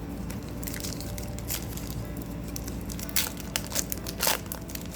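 Foil Pokémon booster-pack wrapper crinkling and tearing as it is opened, with a few sharper crackles in the second half.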